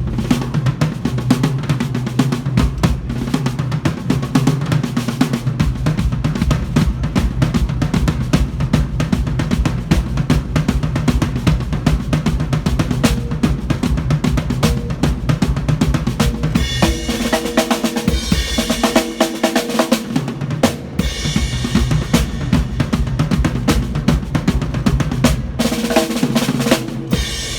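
A drum kit being played hard and fast, with dense, rapid bass drum and snare strokes. A few seconds of ringing, pitched tones rise over the drumming about two-thirds of the way through.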